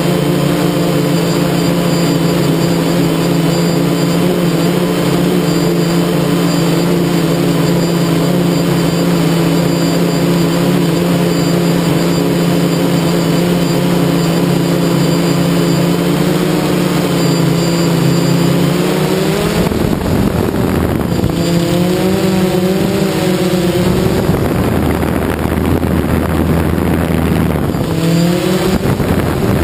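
Quadcopter drone's electric motors and propellers whirring steadily, heard from the camera mounted on the drone itself. Over the last third the pitch starts wavering up and down as the drone comes down toward the ground.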